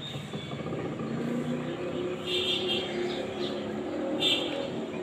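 Steady street traffic, with a motor vehicle engine running. Two short high-pitched calls stand out over it, about two and a half seconds in and again near the end.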